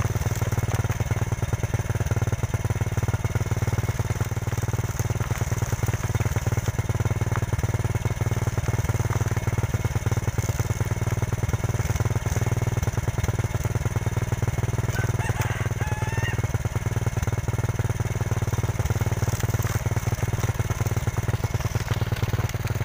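Motorcycle engine running steadily with the rear wheel spinning on its stand, used as a corn sheller: cobs pressed against the tyre, kernels knocked off with a dense, fast clicking over the engine.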